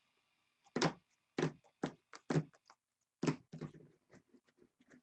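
Handling noise on a tabletop: about five sharp knocks and taps of objects being set down or moved over the first few seconds, with faint ticks between them.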